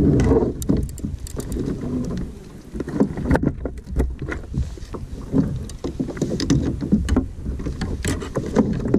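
Water lapping and slapping against a plastic fishing kayak's hull, with frequent short knocks and clicks as the rod and tackle are handled on board.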